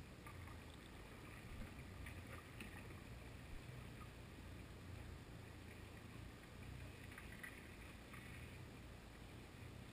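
Faint, muffled underwater noise heard from a GoPro sealed in its waterproof housing: a steady low rumble with a few faint clicks.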